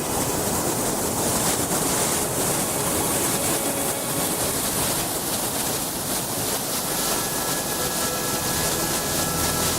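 Waterfall: a loud, steady rush of falling water that cuts in suddenly. Faint steady musical tones come in under it about seven seconds in.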